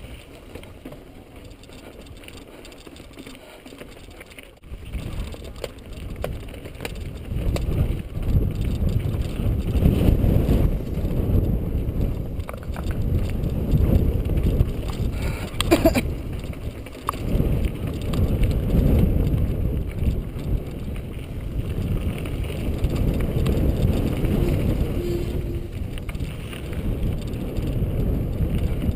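Mountain bike descending rocky slickrock and dirt singletrack, heard from a helmet- or bike-mounted GoPro: a steady rumble of tyres over rock and wind on the microphone, with occasional knocks and rattles. It is quieter at first and grows much louder about five seconds in as the bike picks up speed.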